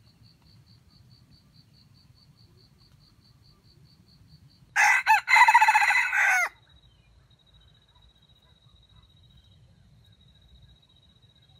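Red junglefowl rooster crowing once, a call of about a second and a half with a short first note and a longer second one. An insect trills steadily and faintly behind it.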